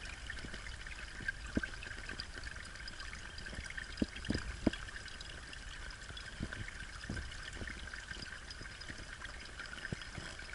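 Water from a small spring creek trickling into a stainless steel cup held in the flow: a steady light splashing with scattered soft plops.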